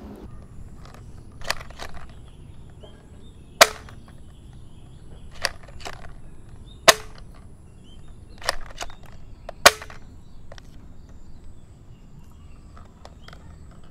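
Red spring-powered toy ball blaster firing plastic balls: three sharp snaps about three seconds apart, each with a softer click a second or so before it.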